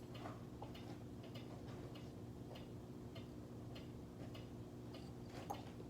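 Faint light ticks or taps, roughly two a second and somewhat uneven, over a steady low hum.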